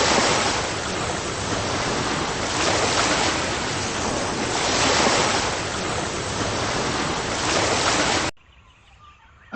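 Surf: a steady rush of waves washing ashore, swelling every two to three seconds, that cuts off suddenly shortly before the end.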